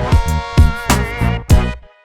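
Background music: a steady drum beat with a held chord over it.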